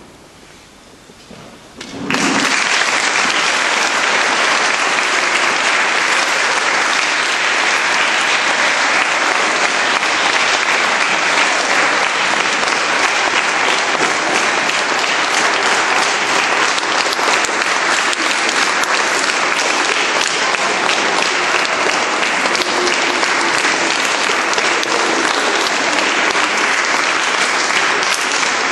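Audience of schoolchildren applauding. The clapping breaks out suddenly about two seconds in and then keeps up as a steady, dense sound.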